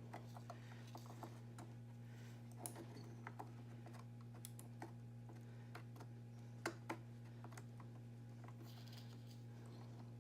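Faint, scattered light clicks and taps as a DDR4 laptop-style memory module is handled and pushed at an iMac memory slot, with two sharper clicks about seven seconds in, over a steady low hum. The module is turned the wrong way round, so it does not go in.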